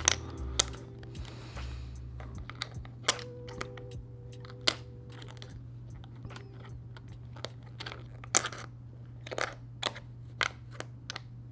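Hard plastic puzzle pieces clicking and tapping against each other and the plastic tray as they are slid around and fitted. The sharp clicks come irregularly, a few louder knocks among many light taps, over a steady low hum.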